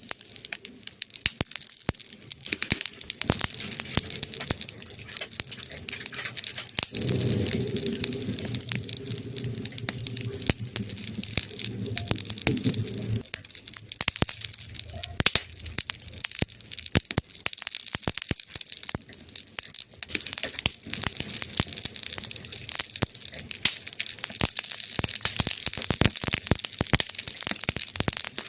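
Campfire crackling with frequent sharp pops and snaps over a steady hiss. A low hum joins in from about seven seconds in and stops about six seconds later.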